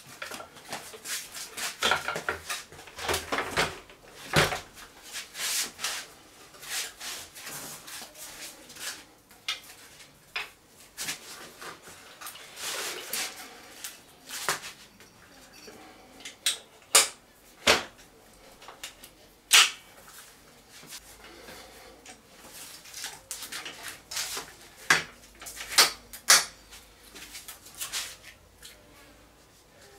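DYU T1 folding e-bike being unfolded by hand: rattling and knocking as the magnesium-alloy frame and handlebar stem are swung into place, with several sharp clacks as the hinges latch.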